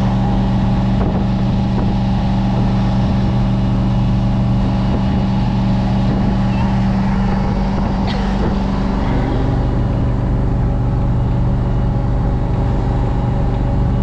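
LS-swapped GM V8 boat engine running steadily under way, its steady hum mixed with the rush of wind and water as the boat runs across the lake.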